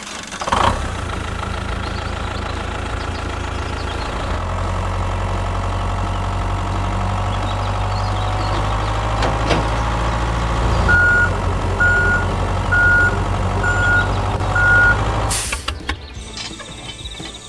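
A vehicle engine running steadily, with a reversing alarm beeping five times, about once a second, in the last few seconds before the sound cuts off.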